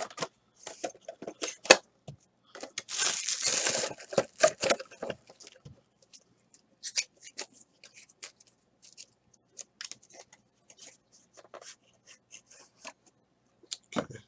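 Hands tearing and crinkling card-box packaging while opening a box of trading cards: a burst of tearing about three seconds in, then scattered light clicks and rustles of cardboard and cards, and a knock near the end.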